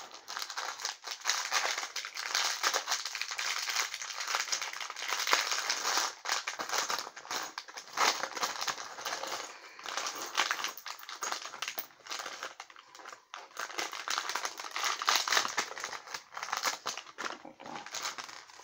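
Small clear plastic bag crinkling and crackling continuously as hands handle it.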